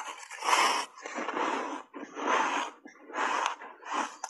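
A mouthful of dry block ice coated in matcha powder being chewed, crunching in about five bursts roughly a second apart.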